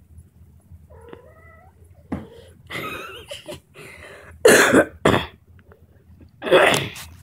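A kitten gives one short, thin meow, then several loud, rough, rasping sounds come in short separate spurts, the loudest about halfway through and near the end.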